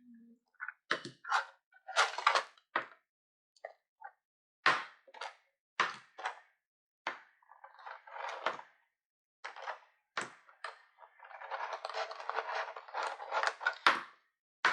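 Slime containers being handled and set down on a table: a string of irregular short clicks and knocks, then a stretch of rustling and crackling handling near the end.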